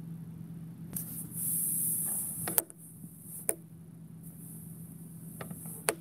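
Handling noise from a camera being moved and repositioned: a hissy rustle lasting about a second, then three sharp clicks or taps spread over the next few seconds, over a steady low room hum.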